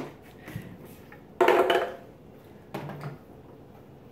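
Plastic Ninja blender pitcher being handled and opened, with its lid and blade assembly taken off: a few short plastic knocks and scrapes, the loudest about a second and a half in. The blender motor is not running.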